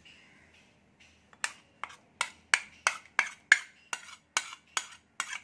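A steel spoon clinking repeatedly against a ceramic plate and bowl as ground onion paste is scraped off into the bowl. The sharp clinks come about three a second, starting a little over a second in.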